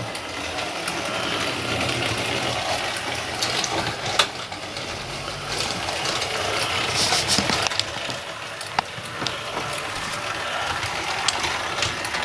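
Model railway tank engine running along the track: a steady whir of the small motor and wheels, with occasional clicks.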